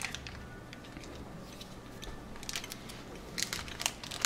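Faint crackling of a plastic snack wrapper being handled, with a few short crinkles near the end.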